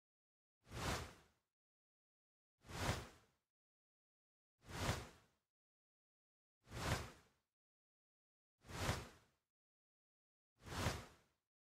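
A soft whoosh of noise that swells and fades, repeated six times at an even two-second pace with dead silence between: a looped end-screen sound effect.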